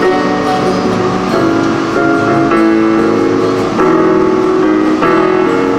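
Music with guitar, chords changing every second or so.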